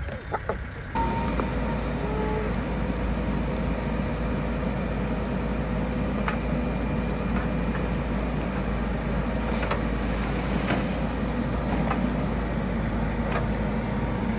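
Hidromek backhoe loader's diesel engine running steadily as the bucket digs in a muddy pond, with a few faint knocks now and then.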